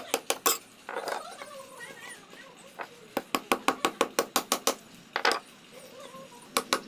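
Steel chisel cutting into the end of a wooden hammer handle on a tiled floor: sharp clicking taps, a few near the start, a fast run of about a dozen in the middle, and a few more near the end.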